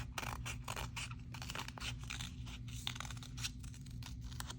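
Scissors cutting around a tape-covered paper drawing: a quick, irregular run of crisp snips, over a low steady hum.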